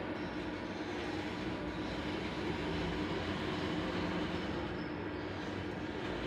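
CNC milling machine running: a steady mechanical hum with a constant mid-pitched tone as the table moves the workpiece under the spindle.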